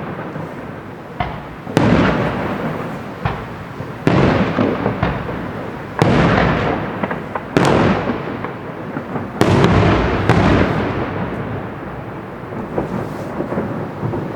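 Aerial firework shells bursting: about five loud bangs roughly two seconds apart, each followed by a crackling tail that fades over a second or two, with smaller pops in between.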